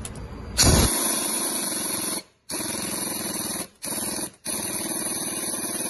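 Impact wrench hammering a bolt home through a rear suspension arm bushing, with a loud hiss. It runs in four bursts: a long one starting about half a second in, two shorter ones, then a long one that stops near the end.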